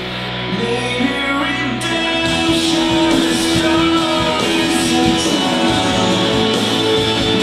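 Live band playing a pop gospel song, with singing and guitar over a steady beat, opening on a held chord for about two seconds.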